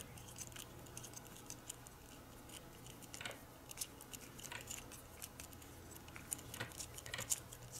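Faint scattered clicks and ticks of small plastic and metal parts being handled as a fan cable is worked through a strain relief on a threaded stainless steel ball mount, over a low steady hum.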